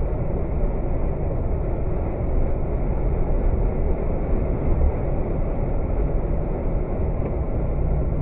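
Steady low road and engine rumble heard from inside a vehicle driving at highway speed, about 80 km/h.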